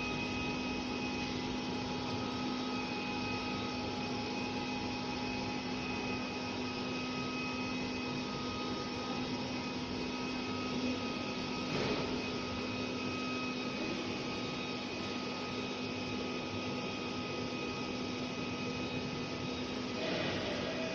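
Steady whir of a BGA rework station's cooling fans and hot-air blower, with a constant low hum.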